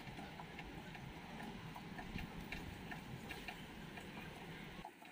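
Faint, irregular light ticks and clicks over a low steady background.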